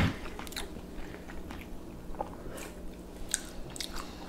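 Quiet close-up chewing, soft wet mouth clicks and smacks of someone eating a spoonful of herring-under-a-fur-coat salad, with a sharp click at the very start.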